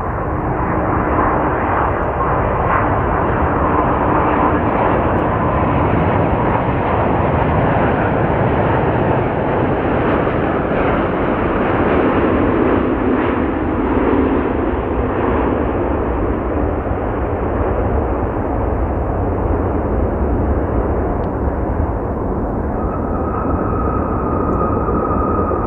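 Boeing 787 jetliner landing: a steady loud jet roar from its turbofan engines, with a whine slowly falling in pitch through the first half and a steady high whine in the last few seconds as it rolls out on the runway.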